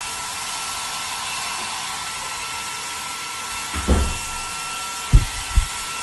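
A steady rushing, blowing noise with a faint steady whine. Several dull low thumps come in the second half.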